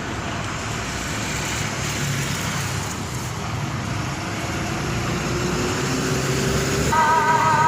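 Road traffic noise, a steady wash of passing vehicles, with a faint tone slowly rising in pitch midway. Music starts near the end.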